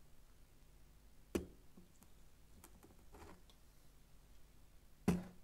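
Two sharp knocks of utensils being set down or lifted on a tabletop, about a second in and again near the end, the second the louder, with a few faint clicks and taps between them.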